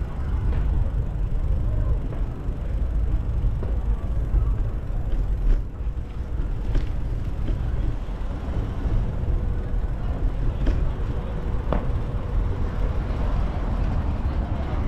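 Steady low rumble of wind and road noise on a moving bicycle's microphone, with passing traffic and a few light clicks.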